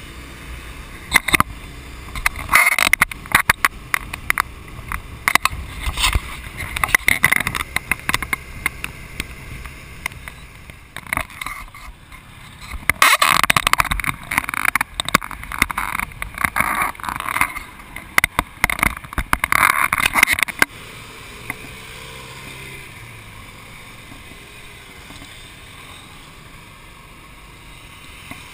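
Wind buffeting and crackling on the microphone of a camera mounted on a moving scooter, over a rush of road noise. The buffeting cuts off abruptly about two-thirds of the way through, leaving a steadier, quieter rush of wind and traffic.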